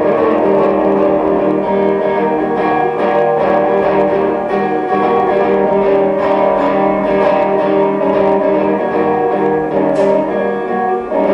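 Solo guitar playing a slow, improvised instrumental jam, with plucked and strummed phrases and notes left ringing.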